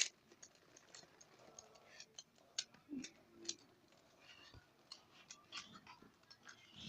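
A 3x3 puzzle cube being scrambled: faint, irregular plastic clicks as its layers are twisted.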